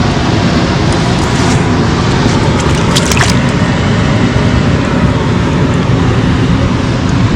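Loud, steady rushing of water pouring through the dam's outflow, with a few faint clicks about three seconds in.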